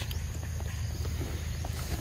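Macaque biting and chewing soft mango flesh up close: a run of small wet smacking clicks, with a louder rustle near the end, over a steady low hum.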